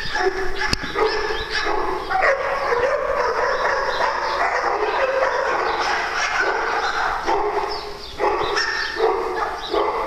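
Dogs barking and whining as they play, in a near-continuous run of calls.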